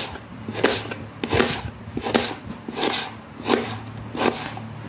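Kitchen knife slicing through an onion and striking a wooden cutting board, about seven even chops.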